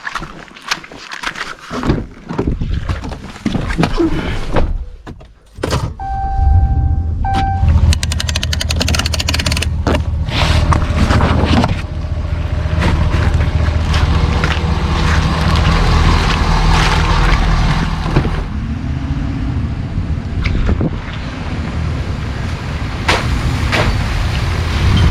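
Knocks and thuds, then a vehicle's engine starts, with a short beeping chime. The vehicle then drives over a bumpy road, its engine rumbling under rattles and clunks.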